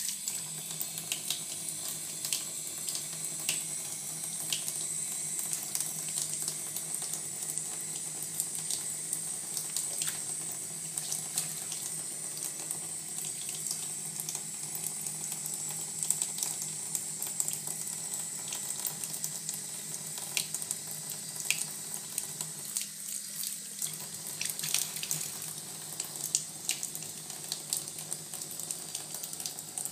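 Water running steadily into a bath, with many small splashes and drips as wet hands move through the water.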